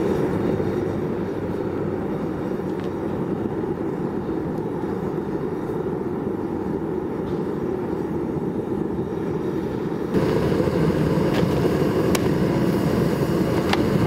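Propane burner of a homemade aircrete furnace running steadily, a constant rushing noise, while aluminum cans melt in the crucible. It gets louder and brighter about ten seconds in.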